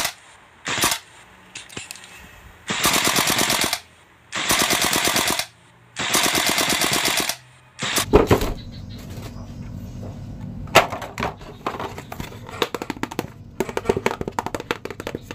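Three bursts of automatic rifle fire, each a little over a second long, after a couple of single clicks. From about eight seconds in, a knock is followed by a low hum and scattered small clicks of plastic toys being handled.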